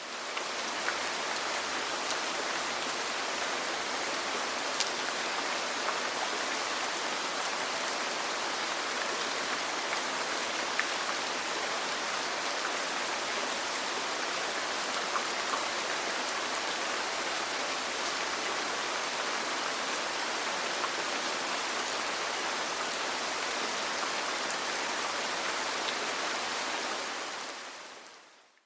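Steady rain falling on a roof, an even hiss with a few faint ticks of single drops. It fades in at the start and fades out near the end.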